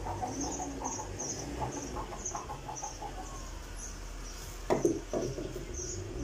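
A steady series of short, high animal chirps, about two a second, over soft rustling of cloth on a table; a single thump about three-quarters of the way through is the loudest sound.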